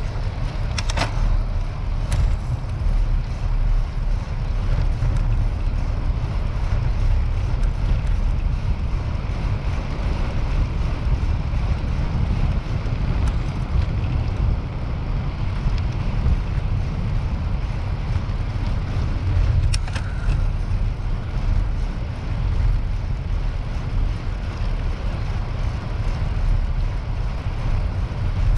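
Steady low wind rumble buffeting the microphone of a camera carried on a moving bicycle, with a few faint clicks about a second in, again at two seconds, and once near the middle.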